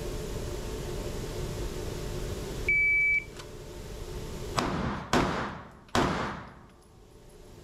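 An electronic start beep, one steady high tone about half a second long, then three semi-automatic pistol shots over about a second and a half, each trailing off in the indoor range's echo.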